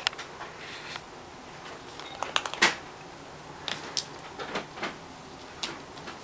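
Champagne cork batted about on a hardwood floor by a kitten: irregular light taps and clatters of cork and paws on wood, with a quick run of them a little over two seconds in that is the loudest.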